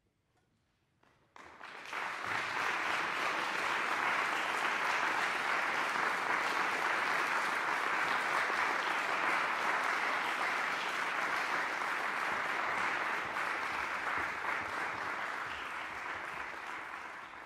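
Audience applauding, starting suddenly about a second in and quickly building to steady, full clapping that eases off slightly near the end.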